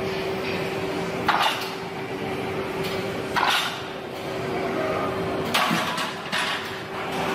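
Heavy plate-loaded barbell bench press under a steady hum, with short noisy bursts about two seconds apart, one with each rep.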